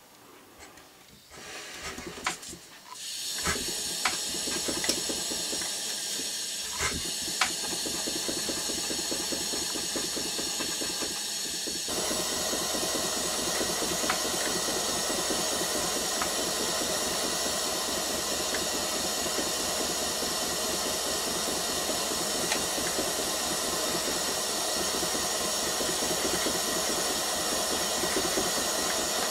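Small gas soldering torch hissing steadily while it melts solder for soldering a loop onto a cross. The hiss sets in about three seconds in, after a few light clicks, and grows fuller about twelve seconds in.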